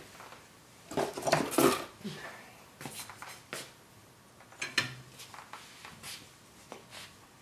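Metal tire tool clinking and clattering against the wheel and the tire changer while wooden blocks are worked in between tire and rim. A dense burst of clatter comes about a second in, then single sharper knocks follow every second or so.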